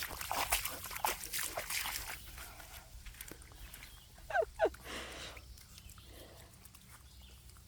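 Miniature American Shepherd puppies splashing and padding through shallow puddle water, with scattered small splashes in the first couple of seconds. Two short puppy yips come about four and a half seconds in.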